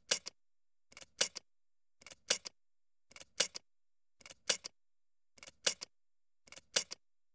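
Canva's "electric timer turn on" sound effect playing once for each number of a countdown: a short burst of two or three sharp mechanical clicks about every second, seven times, with silence between.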